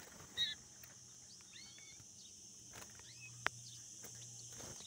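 Caged European goldfinches giving a few faint, short chirps and call notes over a steady high hiss, with one sharp click about three and a half seconds in.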